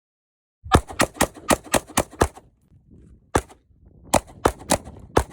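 Rifle shots fired quickly: a string of about seven shots in a second and a half, starting just under a second in, then five more single shots at uneven spacing.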